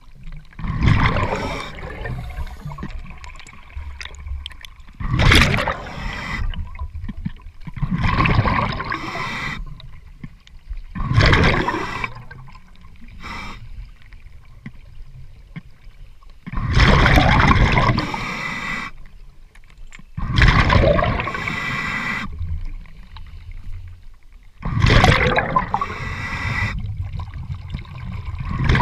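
Scuba regulator breathing underwater: loud rushes of exhaled bubbles, with quieter inhalations between them, coming in a steady breathing rhythm every three to four seconds.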